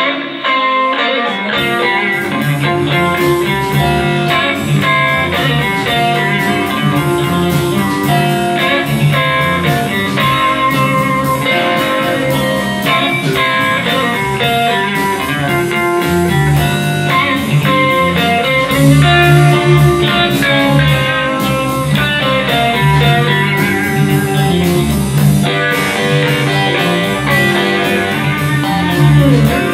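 Live blues band playing loud and full, with electric guitars, bass guitar and drums, kicking in suddenly at the start.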